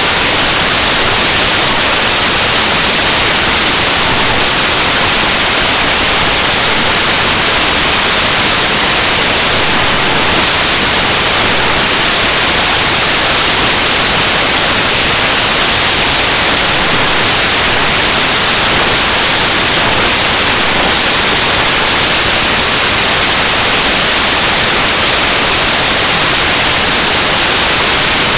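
Loud, steady electronic static: an even hiss that drowns out everything else. It is an audio fault in the webcam recording.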